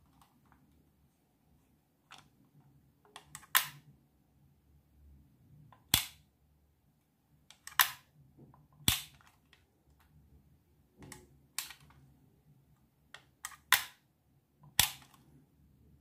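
Holga-type plastic 120 film camera being worked by hand: about a dozen sharp plastic clicks and snaps at irregular intervals from its shutter mechanism and controls, the loudest about six seconds in and again near the end.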